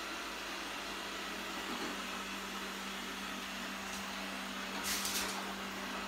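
Robot vacuum cleaner running with a steady whirring hum, and a short, louder rattle about five seconds in.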